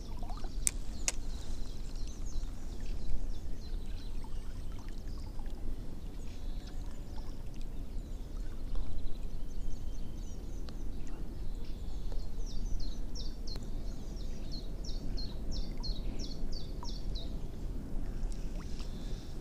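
Steady low water and wind noise around a small boat on a river, with two sharp clicks right at the start. About twelve seconds in a bird sings a run of quick, high descending chirps, about two to three a second, for some five seconds.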